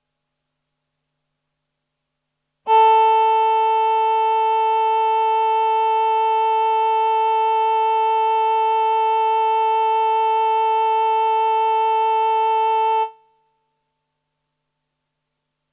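Roland VP-330 synthesizer's 'Human Voice Male' choir patch, with delay, holding a single sustained note for about ten seconds. It starts sharply a few seconds in and fades out quickly, and its upper overtones waver slightly.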